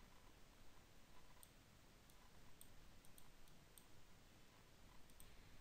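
Faint, irregular computer mouse clicks over near-silent room tone.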